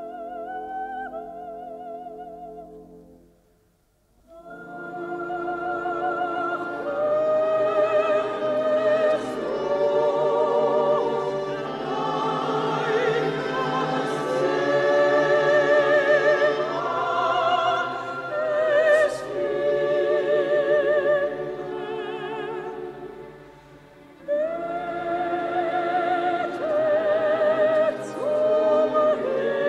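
Operatic soprano singing with wide vibrato over a full orchestra, in a 1952 recording. The music fades almost to nothing about four seconds in, then swells back in and stays loud.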